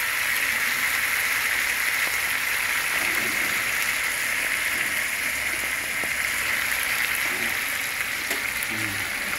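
Fish pieces frying in hot oil and sauce in a pan, a steady sizzling hiss.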